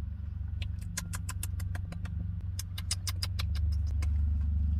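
Wet mouth clicks and lip smacks from someone tasting soft-serve ice cream: a quick, irregular run of sharp clicks lasting about three seconds, over the steady low hum of an idling car engine.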